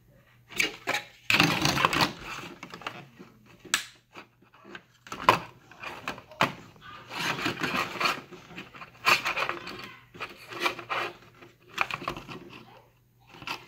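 Irregular scraping, clicking and rattling of a hand tool and hands working at a plastic armour belt, prying loose a canvas strap held on by stubborn glue. A steady low hum runs underneath.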